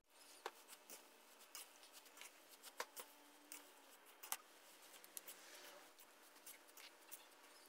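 Faint, scattered clicks and crackles of a spatula tossing crispy fried rice noodles in a wok.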